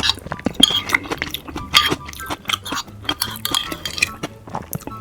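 Close-miked eating sounds: utensils clinking against dishes in quick, irregular clicks, with chewing noises between them.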